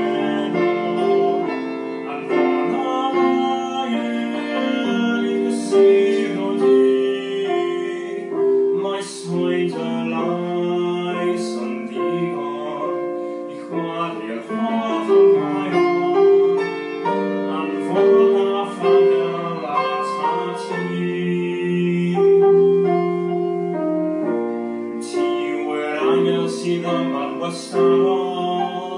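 Piano music played on a keyboard, continuous through the whole stretch.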